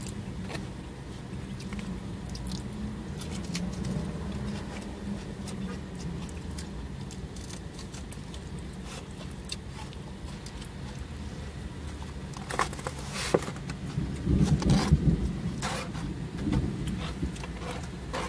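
Small clicks and handling noises from a black plastic fork and a foam takeout container, over a steady low hum. The handling noises grow louder and busier from about 12 to 16 seconds in.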